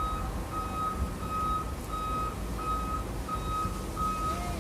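Truck's reversing alarm beeping while backing up: one steady beep repeating about three times every two seconds, over the low rumble of the running engine.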